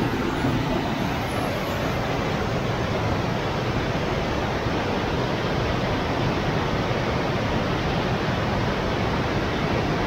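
Waterfall: fast river water cascading over rocks in a steady, even rush.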